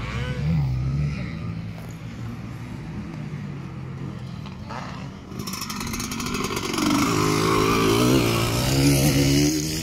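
Motocross dirt bike engine revving on the track, getting much louder past the halfway point as a bike comes close, its pitch rising and falling with the throttle.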